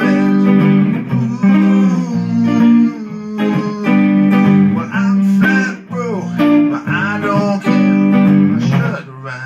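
Stratocaster-style electric guitar playing a rockabilly-blues riff: low bass-note runs under chords and bent higher notes, with brief breaks about six and nine seconds in.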